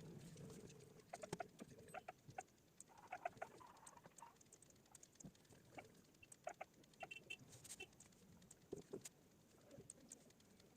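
Faint, irregular clicks of a computer mouse, several in quick clusters, as answers are selected in an online test.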